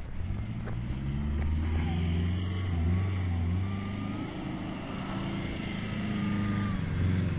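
SUV engine labouring under load as the vehicle climbs a steep bank, its low drone rising and falling in pitch with the throttle.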